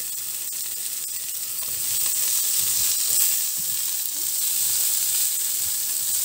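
Onion, capsicum and carrot strips sizzling in oil in a frying pan while a spatula stirs them. The sizzle gets louder about two seconds in.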